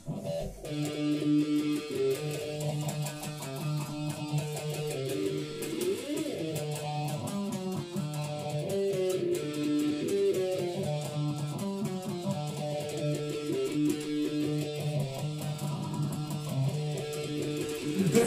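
Electric guitar strumming and holding chords that change every second or so, played with its lowest string broken.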